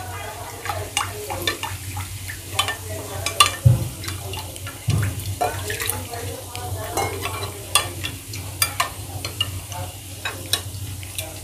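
Cornflour and water being mixed by hand into a slurry in a glass bowl: soft stirring with scattered clicks and taps of hand and bowl, and two dull knocks a little past the middle. A steady low hum runs underneath.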